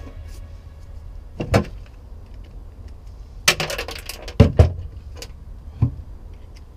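Metal hand tools and hardware clinking and knocking: a single knock about a second and a half in, a quick cluster of clicks about halfway, two sharp knocks just after, and one more near the end.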